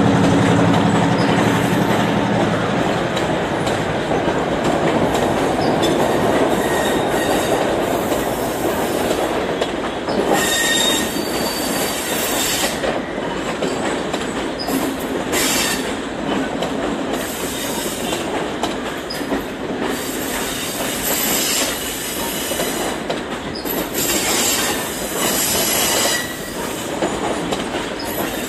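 Passenger train carriages rolling past on the tracks with a steady rumble and clatter. The diesel locomotive's engine fades in the first couple of seconds. From about ten seconds in there are repeated bursts of high-pitched wheel squeal.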